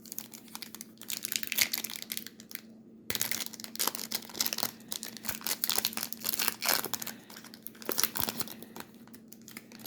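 Trading card pack wrapper crinkling and tearing as it is handled and opened, a rapid crackle that grows denser about three seconds in and fades near the end.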